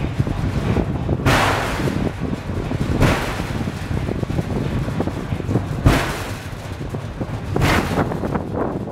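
Wind buffeting the microphone in repeated gusts, over the steady low rumble of the Pic du Jer funicular car running downhill on its rails.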